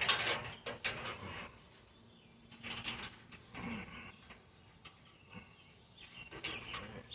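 Old wiring harness being handled and untangled: scattered rustling and clicking of wires and loom. The handling is busiest in the first second and a half and comes again in short bursts later.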